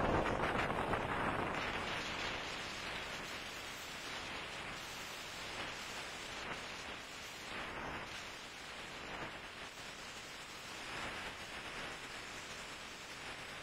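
Steady rushing noise of a windstorm heard from a moving car, loudest at the start and easing off after a few seconds.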